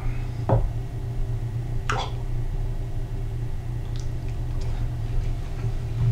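Tableware clinking lightly: two sharp clinks about half a second and two seconds in, then a few fainter ticks, over a steady low hum.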